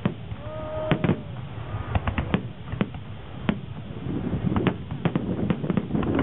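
Aerial firework shells bursting in an irregular string of sharp bangs and cracks, a dozen or so, coming more quickly in the second half, over a low rumble of the display.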